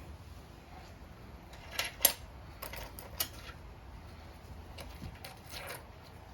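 A few short, light metal clinks and rattles of small engine parts and tools being handled, the sharpest about two seconds in, with a softer rustle near the end.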